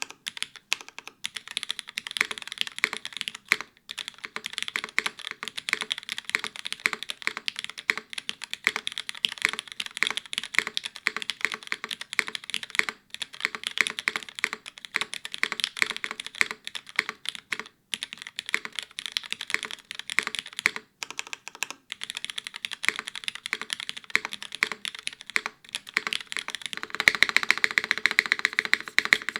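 Typing on a Gehirn TKL mechanical keyboard with lubed, filmed and spring-swapped Cherry MX2A Black linear switches, an aluminium plate, top mount, no foam and GMK keycaps: a steady stream of keystroke clacks. Near the end the strokes come faster and louder in a quick flurry.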